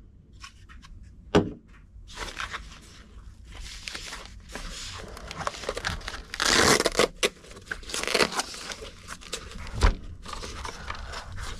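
Packaging being handled and pulled open, crinkling and tearing in irregular bursts, with a sharp click about a second and a half in and a heavier knock near the end.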